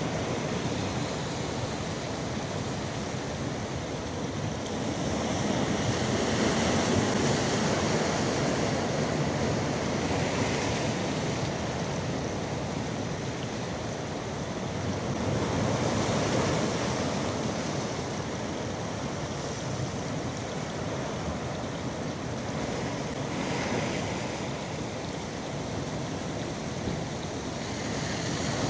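Sea surf washing against a rocky shore, a steady rushing that swells and eases every several seconds, with wind buffeting the microphone.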